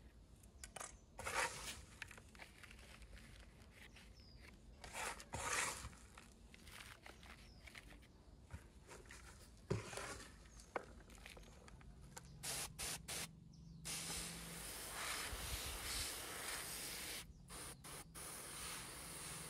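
A few short scrapes and rustles, spaced several seconds apart. About two-thirds of the way in, a steady hiss takes over, with a couple of brief breaks.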